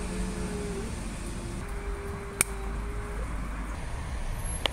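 Steady low background rumble with a faint hum, broken by one sharp click about halfway through and a fainter click near the end.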